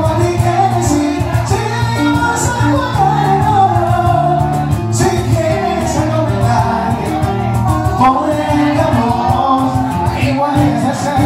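A man singing a Spanish-language song live into a handheld microphone over backing music with a bass line and a steady beat.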